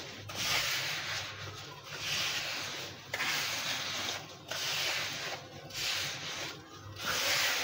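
Fingers raking through damp sand in a plastic tub: a gritty scraping rasp in repeated strokes, about one a second.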